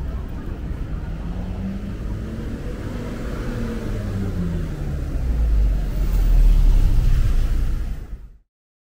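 Street traffic: a motor vehicle's engine rises and falls in pitch as it passes, then a deep rumble grows louder before the sound cuts off to silence near the end.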